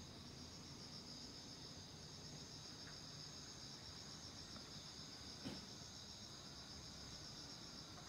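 Faint, steady chorus of singing insects: a continuous high-pitched trill. A single soft knock about five and a half seconds in.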